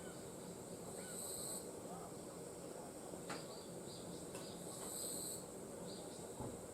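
Summer forest ambience: insects keep up a steady high drone. Two louder high calls of about a second each come about a second in and again near five seconds, with a few faint short bird chirps early on.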